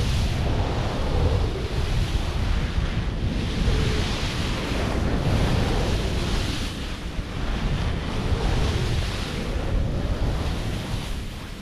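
Wind buffeting the camera microphone in a steady low rumble, with the snowboard's edge scraping and hissing over firm snow, the hiss swelling every second or two as the board carves downhill.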